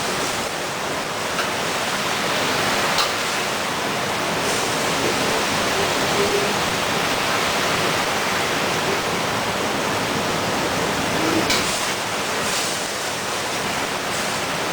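Food sizzling steadily in hot oil in a pan, with a few light clicks of a utensil.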